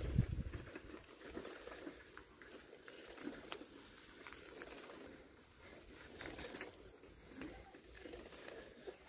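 Pigeons cooing faintly and intermittently, with light scattered footfall clicks. A brief low rumble on the microphone in the first half-second is the loudest thing.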